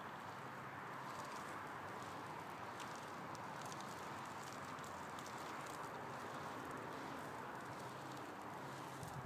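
Steady outdoor background hiss with faint, scattered light ticks.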